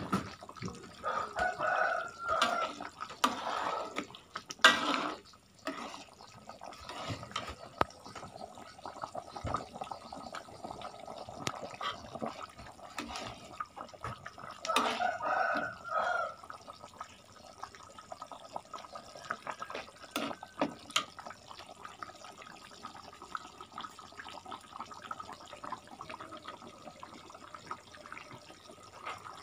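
A metal spoon stirring a thin sauce in a metal pan on the stove: liquid sloshing and bubbling, with scrapes and clinks of the spoon against the pan. The sharpest clatter comes about four to five seconds in, with more clinking around fifteen seconds in.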